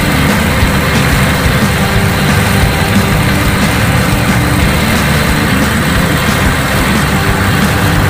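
Heavy diesel engine idling steadily at an even level.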